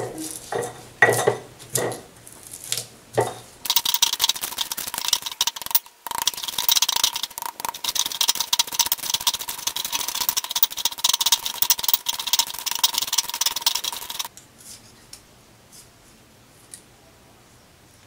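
Stone pestle on a stone mortar (cobek and ulekan): a few knocks at the start, then fast, continuous gritty grinding as chilies, shallots and garlic are crushed into a spice paste, breaking off briefly about six seconds in and stopping about fourteen seconds in.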